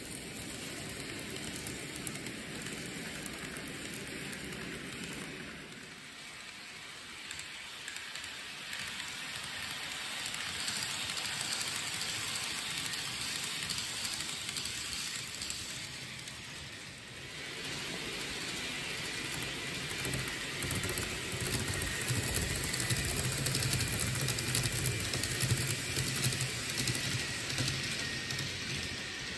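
N gauge model train running on the layout track: a steady, rain-like hiss and clatter of small wheels on the rails. A low motor hum comes up about two-thirds of the way through.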